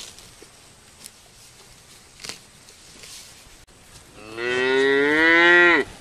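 A cow moos once, a long call of about a second and a half that starts about four seconds in and drops in pitch as it ends. Before it there are only a few faint clicks.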